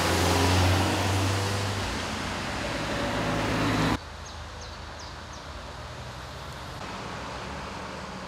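Cars and a van driving past on a wet road, a steady rush of tyre and engine noise. About four seconds in it cuts to quieter roadside ambience with a few short high chirps.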